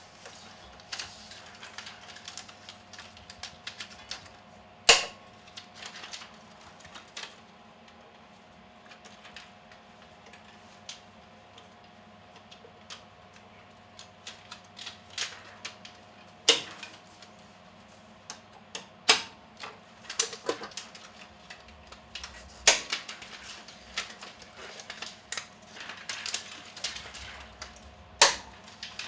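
Irregular light clicks and clacks, with a handful of louder snaps, from the parts of a 35mm film projector's threading path being opened, set and snapped shut by hand as film is threaded. A steady hum runs underneath.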